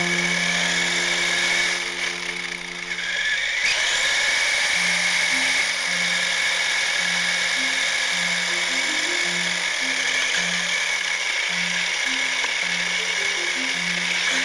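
Background music with a steady low bass line, over a continuous high electric whine and hiss from the RC crawler's motor and drivetrain as it drives. The whine briefly dips about three and a half seconds in.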